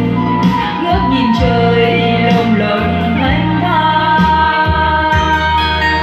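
Music: an instrumental passage of a song, long held melody notes over a steady bass line.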